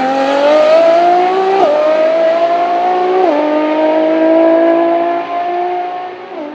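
Ferrari FXX K's V12 engine at full throttle accelerating away, its pitch climbing through each gear and dropping at three quick upshifts. It fades near the end as the car pulls into the distance.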